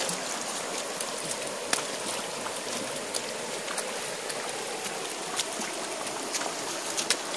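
Shallow stream running over a rocky bed: a steady rush of water, with a few sharp clicks scattered through it.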